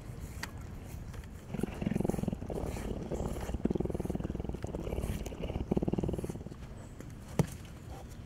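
Cougar purring: a low rattling purr in several stretches of about a second each, pausing briefly between breaths. A single sharp click follows about seven seconds in.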